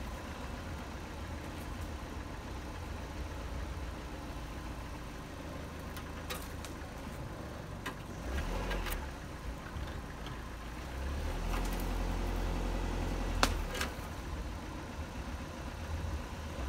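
Dodge Neon's four-cylinder engine running at low speed as the car creeps over a rough dirt trail, its low rumble swelling for a few seconds past the middle. Scattered knocks and clicks come through, the sharpest one about thirteen seconds in.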